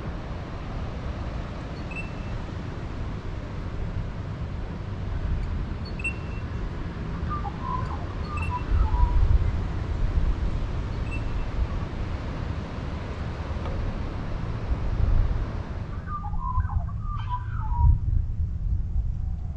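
Short bird chirps scattered over a steady low rumble and hiss, with a brief burst of chirping near the end as the hiss drops away.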